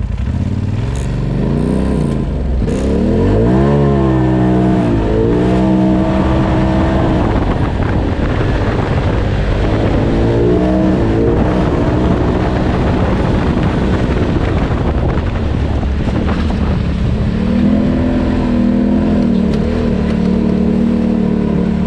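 Polaris RZR Turbo side-by-side's turbocharged engine revving up and down as it is driven hard, its pitch rising and falling in repeated surges, then running more steadily near the end.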